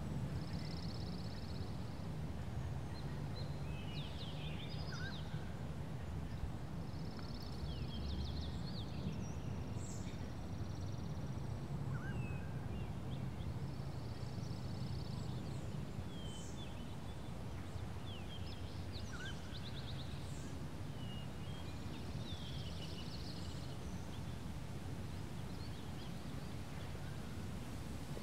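Quiet outdoor ambience: birds chirping and trilling now and then over a low steady hum.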